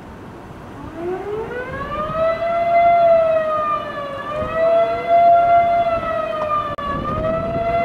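Outdoor tornado warning siren winding up about a second in, its pitch rising, then holding high and dipping and recovering twice. It is sounding to warn of an approaching tornado. Wind noise rumbles on the microphone underneath.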